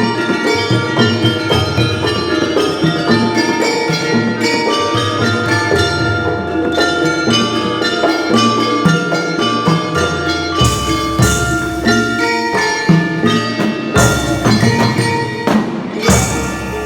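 Jaranan gamelan ensemble playing: struck bronze metallophones ring in interlocking notes over steady drum strokes.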